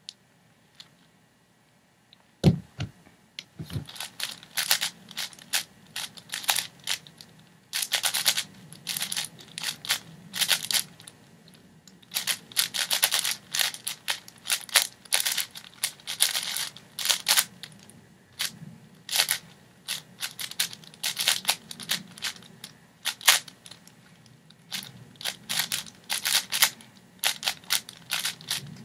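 A 6x6 speedcube being turned fast by hand: runs of rapid plastic clicking and clacking with short pauses between. About two and a half seconds in there is a single sharp knock, before the turning starts.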